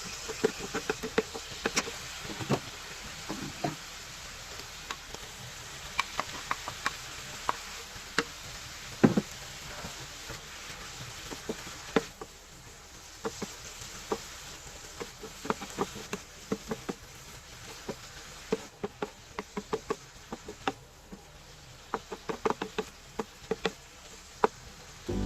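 Irregular clacks of a cooking utensil against a pan, over a faint frying sizzle that fades about halfway through.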